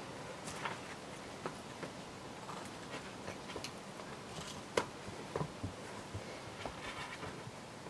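Scattered scuffs and taps of a climber's rubber-soled shoes and hands on granite, irregular, with one sharper knock about five seconds in.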